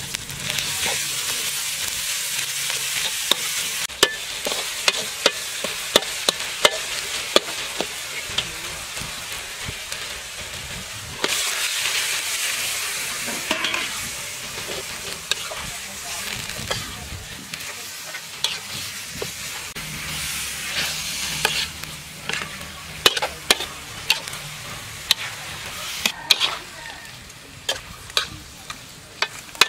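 Food frying in a large aluminium wok, sizzling steadily, while a metal ladle stirs it, clinking and scraping against the wok many times. The sizzling grows suddenly louder about eleven seconds in, as raw goose pieces are fried with the spice paste.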